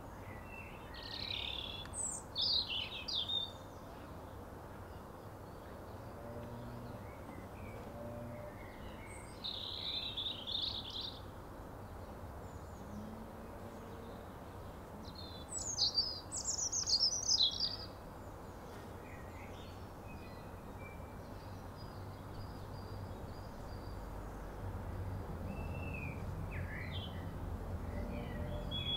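Songbird singing: three short phrases of song, each one to two and a half seconds long and several seconds apart, with fainter chirps near the end, over a low steady background hum.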